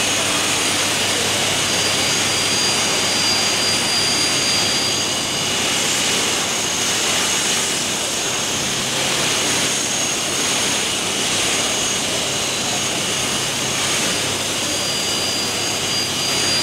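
Four-axis gantry CNC drilling machine running, a steady roar with several thin, high-pitched whines that fade in and out, over the busy hum of an exhibition hall.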